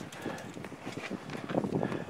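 Irregular light knocks and rustling as a stiff black roofing sheet is handled and snipped with scissors, thicker towards the end.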